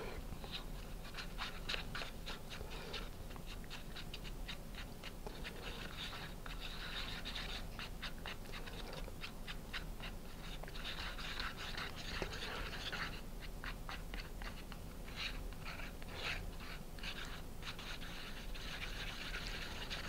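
A stir stick scraping round the inside of a paper cup, mixing carpenter's wood filler thinned with water into a paint-on paste: quick runs of soft scrapes, several a second, with short pauses.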